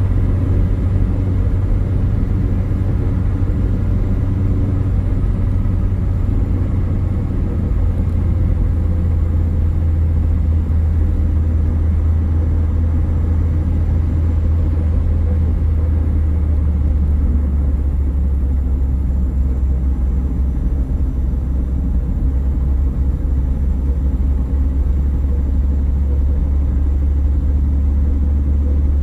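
Car driving on a road: a steady, low rumble of engine and tyre noise that holds even throughout.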